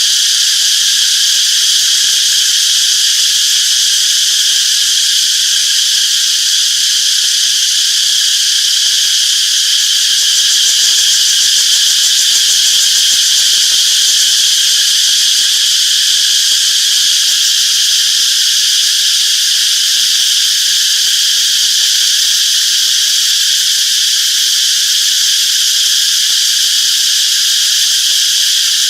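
Chorus of cicadas, a steady high-pitched buzzing drone without breaks.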